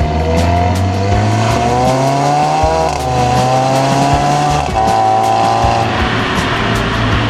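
Audi A4 B9's 2.0 TFSI turbocharged four-cylinder engine accelerating, its pitch rising, dropping at an upshift about three seconds in, rising again and dropping at a second upshift, then holding steady. A louder rushing noise of tyres and wind takes over near the end.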